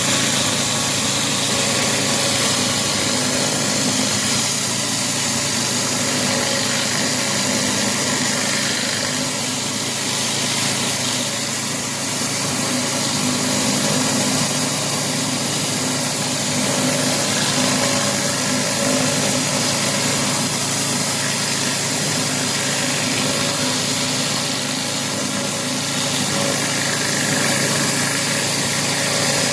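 Pressure washer running steadily: an engine hum under a constant hiss of high-pressure spray.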